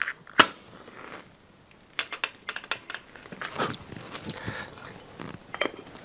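A safety match struck sharply once against its box to light the alcohol burner of a Hario siphon coffee maker, followed by scattered light clicks and taps.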